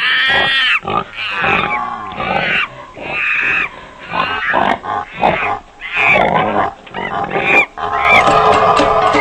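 A pig squealing loudly over and over, a series of about ten short, pitch-bending cries. Near the end, gangsa gong music comes back in.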